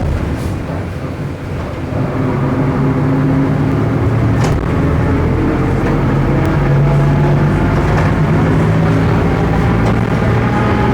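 Volksbus 17.230 OD bus under way, its MAN D0834 diesel running steadily and coming on load about two seconds in. A higher whine sits above the engine note and rises slightly near the end. The bus's differential is said to be growling.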